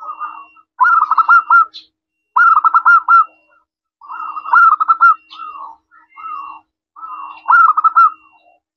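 Zebra dove (perkutut) singing: four phrases of quick staccato coos, each under a second long and about two seconds apart, with softer coos between them.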